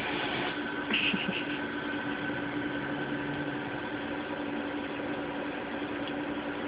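A steady background hum with a constant low tone, and a brief higher scratchy sound about a second in.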